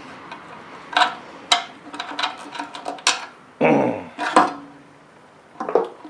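Irregular clicks, knocks and rattles of small metal and plastic engine parts being handled, as a push mower's carburetor and fuel tank are worked loose from the engine together.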